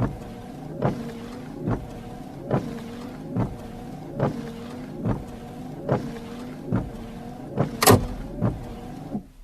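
Car windshield wipers running: a steady wiper-motor hum with a knock at each end of the sweep, a little more than once a second. A sharper, louder click comes near the end, and the sound stops just before the end.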